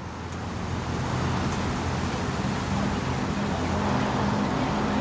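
A motor vehicle engine running with a steady low hum, growing louder over the first second, over traffic noise.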